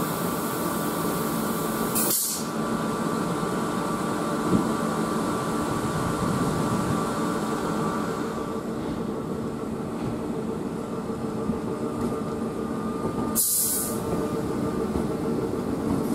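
South Western Railway Class 442 electric multiple unit pulling out of the platform and rolling past, with a steady electrical hum and whine from the train. Two short hisses are heard, about two seconds in and near the end.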